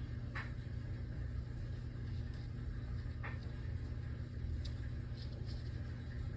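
A steady low hum throughout, with a few faint, brief clicks and rustles of something being handled.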